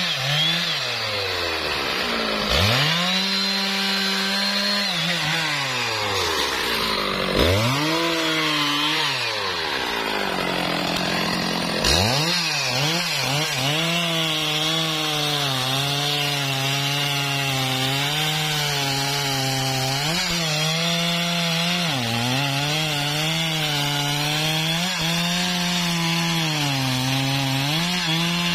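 Stihl MS 660 two-stroke chainsaw cutting through a thick trembesi log. The engine pitch sags and recovers several times in the first half as the chain loads up in the cut, then holds fairly steady under load, with a few brief dips.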